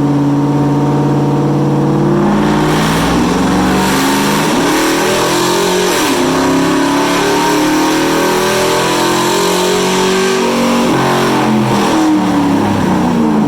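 2012 Chevrolet Silverado engine under full throttle on a chassis dyno, its pitch climbing steadily as it pulls through the gear, heard through an aftermarket exhaust with high-flow cats. About five seconds in the pitch breaks as the automatic transmission downshifts, then it climbs again, and near the end the revs fall away as the throttle closes.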